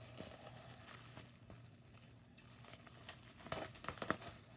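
Plastic bubble wrap rustling and crinkling as a wrapped bundle is handled, with a short cluster of sharper crackles about three and a half seconds in.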